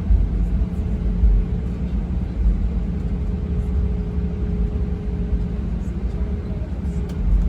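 Steady cabin noise of a jet airliner in flight: a deep engine and airflow rumble with a faint steady hum above it.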